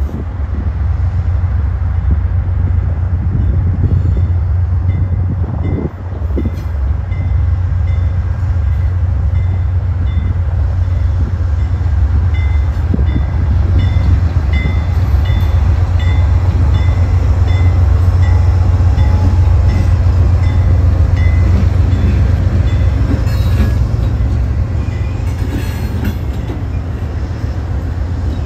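Amtrak diesel locomotives, a GE Dash 8-32BWH leading and a GE P42DC trailing, hauling a passenger train past with a steady, loud low rumble. Through the middle a faint ringing tone repeats about twice a second.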